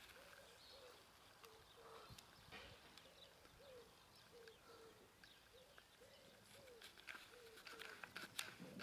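Faint cooing of a pigeon: a steady run of short low notes, about two to three a second, with a few sharp clicks near the end.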